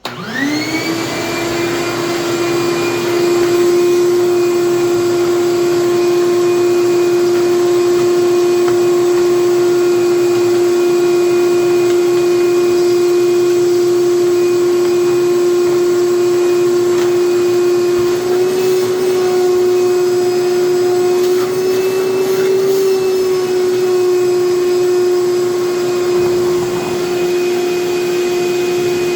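Electric shop vacuum switched on, whining up to speed within the first second, then running steadily with a high, even whine, its pitch wavering briefly about two-thirds of the way through. It is clearing out nest debris a critter left in the snowblower's belt area.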